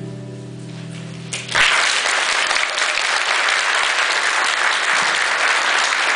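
A strummed acoustic guitar's final chord rings out and fades, then about a second and a half in an audience breaks into steady applause.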